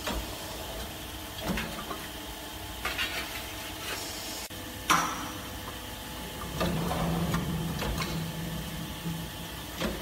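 Round duct seam closer at work: its roller head presses along the seam of a galvanized sheet-metal duct over a steady machine hum, with metallic clanks and rattles of the sheet, the loudest about five seconds in. A steady low hum comes in about six and a half seconds in and stops near nine seconds.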